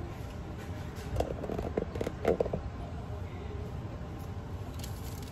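Steady low room hum, with a few short knocks and rustles of handling about one to two and a half seconds in.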